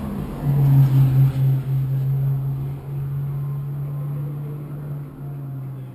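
Car engine running with a steady low drone, heard from inside a race car's cabin. It comes in about half a second in, swells a few times during its first second, then holds steady until near the end.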